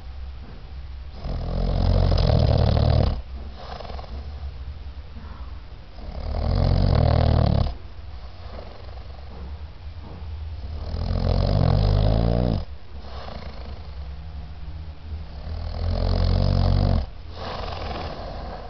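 A sleeping boy snoring: four long, loud snores, one every four to five seconds, each lasting about two seconds, with quieter breathing between them.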